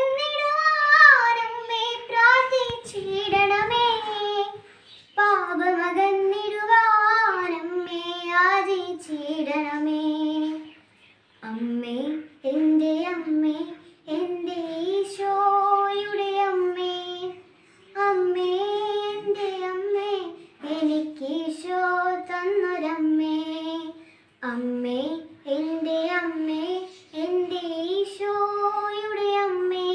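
A young girl singing solo and unaccompanied, in phrases separated by short pauses for breath.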